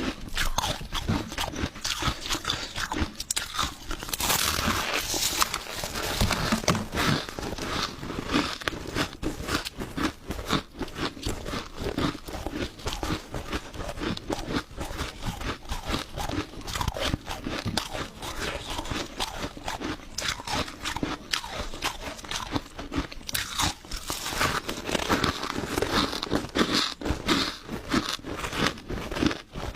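Crushed ice being bitten and chewed, a rapid, continuous crunching and crackling.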